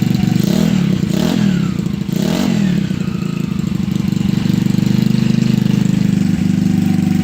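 Single-cylinder GY6 150cc four-stroke scooter engine in a Ruckus, blipped up and back down about three times in the first three seconds, then idling steadily.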